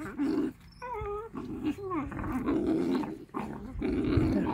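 Wolf pups growling as they feed together on a large raw meaty bone. A short wavering whine cuts in about a second in, and a brief falling whine follows just after.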